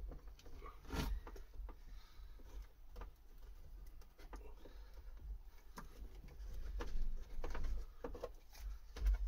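Scattered clicks, taps and rustles of hands working the wiring harness and plastic clips inside a stripped Ford Mondeo Mk5 door, with a sharper click about a second in.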